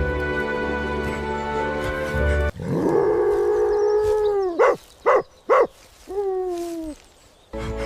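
Background music stops about two and a half seconds in, and a wolf howls: one long call that rises, holds and falls, then three short yelps, then a shorter howl falling in pitch. Music comes back near the end.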